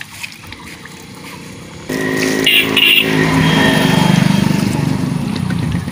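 Tractor diesel engine running. It comes in suddenly about two seconds in, picks up speed and then holds steady. Before it, faint splashing and dripping of wash water.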